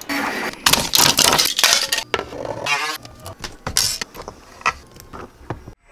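An uneven run of clicks, clinks and rattles from small parts and wire connectors being handled during assembly.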